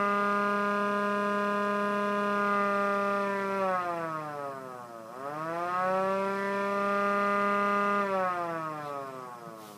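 Small model siren running on 3 volts without its housing, wailing: it holds a steady tone, winds down about four seconds in, winds back up and holds again, then winds down near the end.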